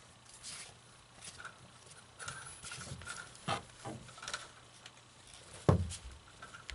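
Scattered knocks, clicks and rustling from the parts and costume of a Lurching Werewolf animatronic being handled and fitted together during assembly, with one loud thump a little before six seconds in.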